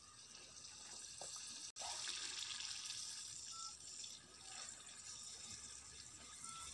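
Mini pooris frying in hot oil in a small clay pot: a faint crackling sizzle that grows louder about two seconds in, with a brief break just before.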